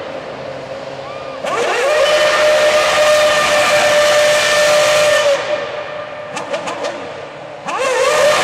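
McLaren MP4-23's 2.4-litre Mercedes V8 Formula One engine revving up about a second and a half in and held at high revs for about four seconds while the rear tyres spin and smoke in a donut, with a loud tyre hiss. The revs then drop back with a few sharp pops before rising again near the end.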